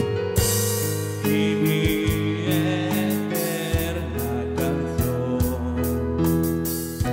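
Music with a drum beat and sustained melody lines, in a Christian gospel style, possibly with a singing voice.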